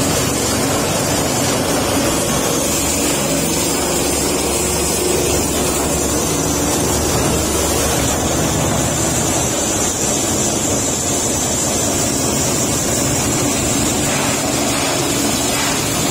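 Oil palm frond chopper running steadily while wet palm fronds are fed in and shredded into fine fodder: a loud, unbroken mechanical noise.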